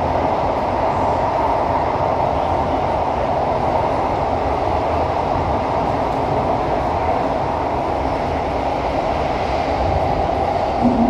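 Interior running noise of a CT251 MRT train moving between stations: a steady, even rumble of wheels on the track heard inside the passenger car. A low steady hum comes in right at the end.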